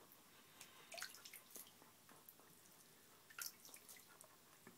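A few faint, scattered drips and small splashes of water trickled from a hand onto a hedgehog's back in shallow bathwater.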